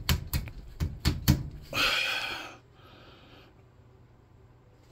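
A quick run of sharp taps and knocks, about eight in the first second and a half, then a short breathy rush of noise about two seconds in.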